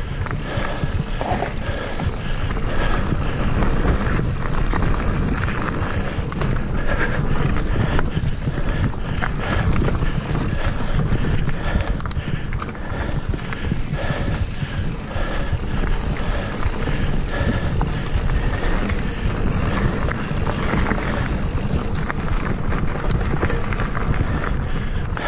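Mountain bike ridden fast along a dirt singletrack trail: steady tyre noise on dirt and leaves, with the bike rattling and clicking over rough ground.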